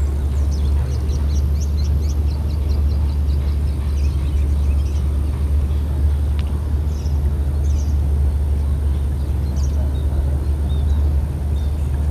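Outdoor ambience: a steady low rumble, with small birds chirping in quick runs of high, falling notes over the first few seconds and a few more calls now and then. No shot is heard.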